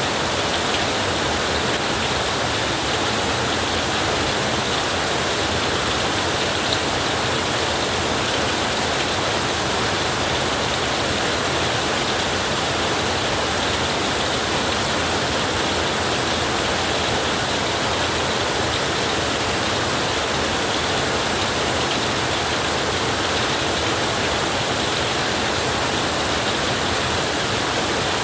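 Heavy rain drumming steadily on a tin roof: an even, dense hiss that does not change.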